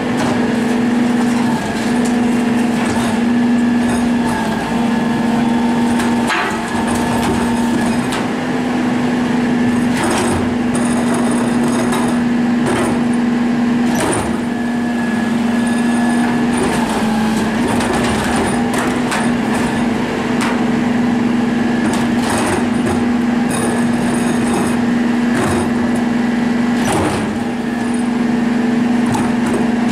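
Rear-loader garbage truck (2014 Isuzu chassis, New Way Diamondback body) standing and running with a steady hum, with sharp knocks and clatter every few seconds as recycling carts are handled and hooked onto its rear cart tipper.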